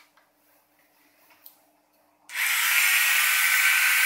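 The wheel motors of a self-balancing robot start up about two thirds of the way in with a sudden, loud, steady whirring buzz, driving hard as the robot is brought upright and starts balancing. A few faint handling clicks come before.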